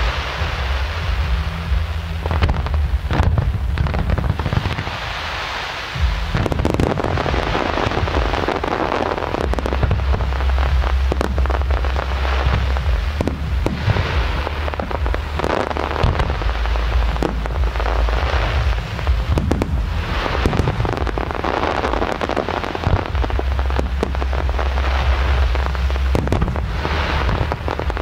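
Aerial fireworks display: a rapid, continuous run of shell bursts with sharp bangs over dense crackling, and a deep rumble underneath through much of it.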